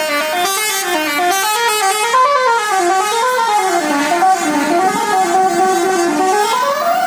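Bus telolet basuri melody horn playing a tune: two tones moving together in quick stepped notes that climb and fall without a break.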